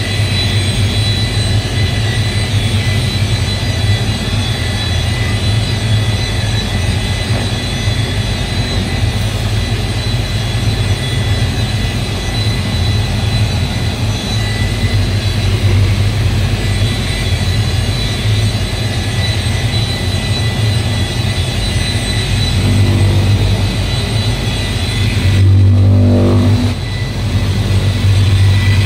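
Handheld electric paint polisher running steadily while buffing a car's door panel: a constant motor whir with a thin high whine. Near the end the sound shifts, dipping briefly and then coming back louder.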